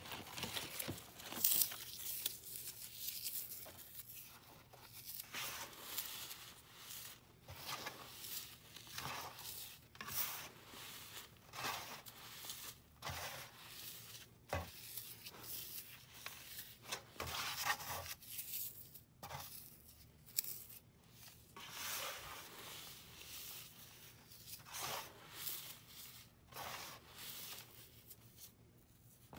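Crumbled dry floral foam mixed with gym chalk and baby powder, squeezed and raked by hand: a steady run of irregular dry crunches and scratchy rustles.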